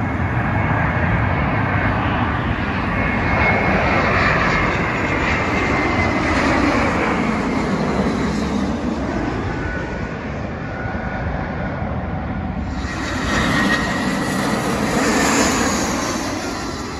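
Airbus A321 jet airliner passing low overhead on final approach, its engine noise swelling and its pitch falling as it goes by. About thirteen seconds in it cuts to an Airbus A320 on approach, loud again with a high whine that falls in pitch.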